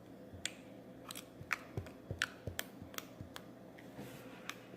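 Slime being squeezed and pressed in the hands, giving off irregular small clicks and pops.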